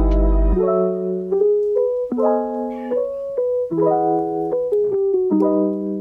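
Background lofi music: a beat with bass and drums stops about half a second in, and a piano plays separate chords and melody notes without drums.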